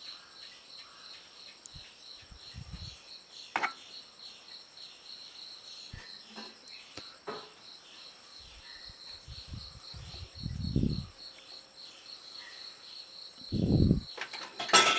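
Steady background chirping of insects, a rapid even pulsing at a high pitch, with a few faint clicks and two soft low thumps from handling in the second half.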